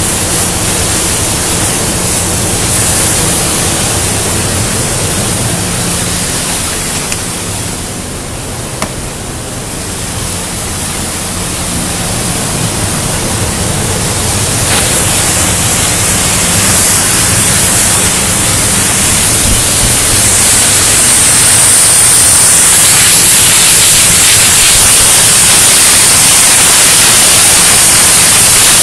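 CNC profile-cutting torch cutting steel plate: a loud, steady hiss over a low machine hum. It grows louder after about twelve seconds and is loudest over the last third, where a strong high hiss dominates.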